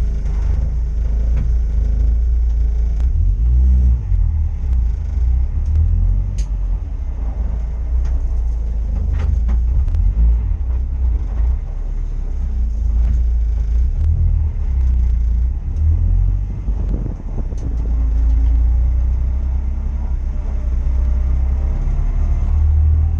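Racing engines running with a continuous, fluctuating low rumble.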